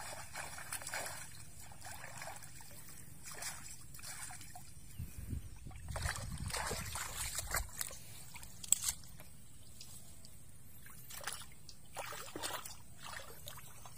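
Shallow muddy water sloshing and splashing in short, irregular bursts as hands work through it, with a single sharp click about nine seconds in.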